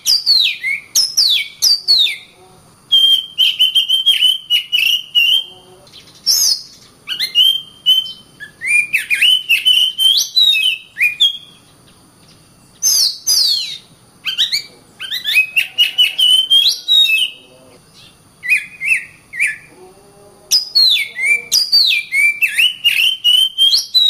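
Oriental magpie-robin singing: phrases of sweeping, varied whistled notes mixed with sharp clicking notes, each phrase a few seconds long and broken by short pauses.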